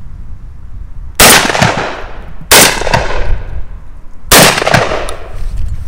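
Three 12-bore shots from a Browning Maxus 2 semi-automatic shotgun, fired in quick succession about a second to two seconds apart. Each sharp report trails off in a ringing echo.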